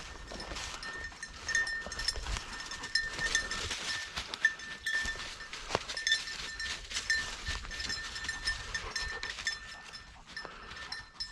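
Bell on a German Shorthaired Pointer's collar jingling in quick repeated strokes as the dog keeps moving through the cover, over crackling steps in brush. An unbroken ring means the dog is still moving and has not gone on point.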